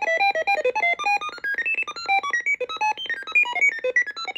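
DIY Random Tone Machine playing a fast stream of short electronic beeps, several a second, each jumping randomly to a new pitch, in the style of an old movie computer. The tone lengths vary because its randomise switches are set.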